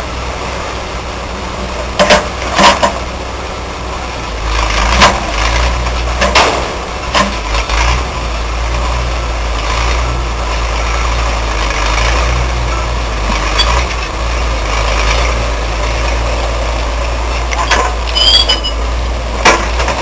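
Bantam cable backhoe's engine running steadily under load as it digs, with sharp clanks from the machine and bucket every few seconds and a brief high squeal near the end.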